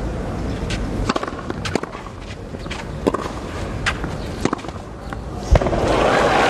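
Tennis court sounds between points: scattered light taps and scuffs of players' shoes on the clay court, a single sharp knock about five and a half seconds in, then a steady rise of noise near the end.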